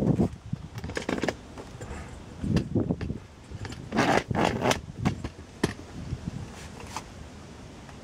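Handling noise: irregular clicks, knocks and scraping as a plastic jerrycan and bottle are moved about on a rattan chair, with the busiest cluster of knocks a little after halfway.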